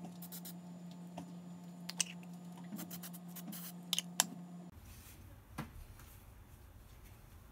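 A few short hisses of an aerosol spray-paint can right at the start, then a low steady hum with a few sharp clicks. About four and a half seconds in, the hum cuts off suddenly and a low rumble takes its place.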